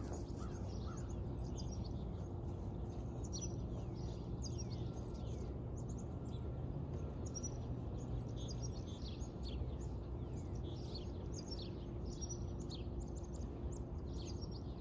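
Many small birds chirping and calling, in short rapid chirps throughout, over a steady low rumble.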